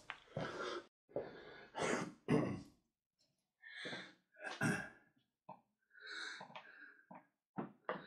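A string of short, irregular scrapes and rustles as a knife trims bark and wood at the cut top of a Japanese maple trunk.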